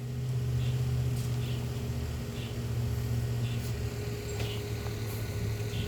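A steady low machine hum, with a few faint, short ticks over it.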